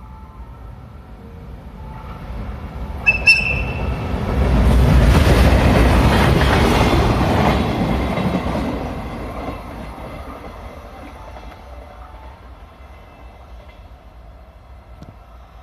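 EF510 electric locomotive hauling a single container flatcar passing through without stopping. A brief high-pitched whistle toot sounds about three seconds in. Then comes the loud rumble and rattle of the locomotive and wagon going by, loudest around five to eight seconds in, fading as the train moves away.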